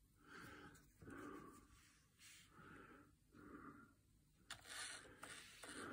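Near silence: room tone with a few faint soft sounds and some faint clicks near the end.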